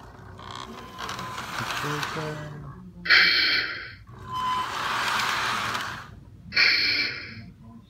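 Lionel M7 subway car's RailSounds electronic horn sounding two short blasts about three and a half seconds apart, set among stretches of hissing sound effects.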